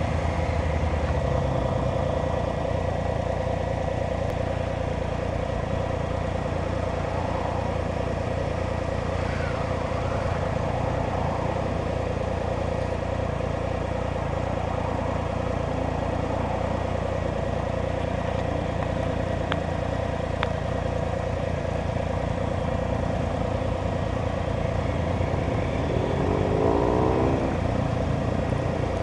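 A vehicle engine idling with a steady hum. Near the end, approaching motorcycles' engines come in, their pitch sweeping as they draw close.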